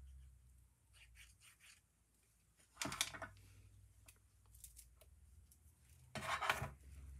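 Paper card stock being handled and rubbed while a small paper piece is glued: a few faint ticks, then two short rustling scrapes of paper about three seconds apart.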